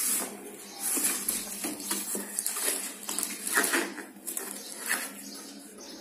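Cardboard rustling and scraping as a large shipping box is pulled open, then scissors cutting through the cardboard and packing tape in short irregular snips and crackles.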